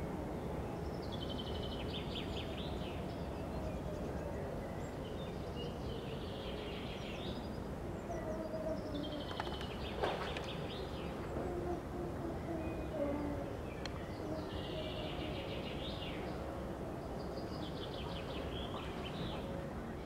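Small songbirds singing short trilled phrases about every four seconds over a steady outdoor hiss. Underneath is a faint, slowly wavering low tone: the distant pneumatic siren dying away.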